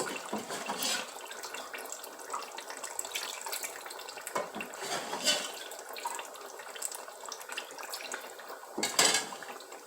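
Stock water being poured into a pot of tomato stew: a steady splashing pour, with a few short clicks along the way.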